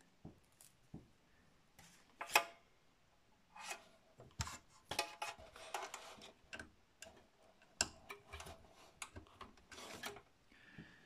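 Scattered clicks, scrapes and rubbing of plastic and cable as a replacement power-button switch for a Dell Optiplex 790 is pushed into place and its lead handled inside the metal case. One sharp click about two seconds in is the loudest.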